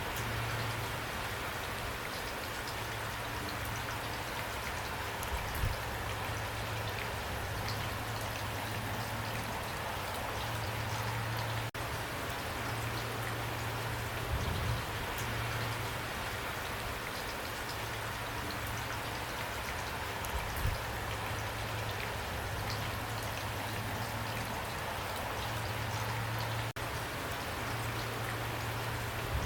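Steady rain falling, an even hiss of drops with a few louder single drop hits now and then, over a low steady hum.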